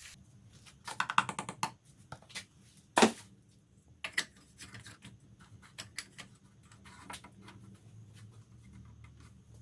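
Scattered light clicks and taps of objects being handled, with one sharper click about three seconds in and a faint low hum in the second half.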